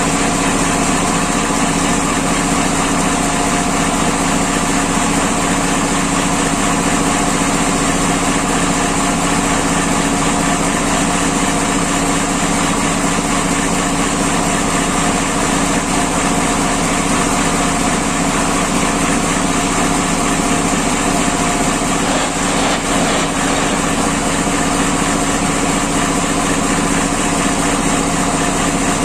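Engine-driven sawmill machine running steadily at a constant speed, a continuous even hum with no change in pitch or load.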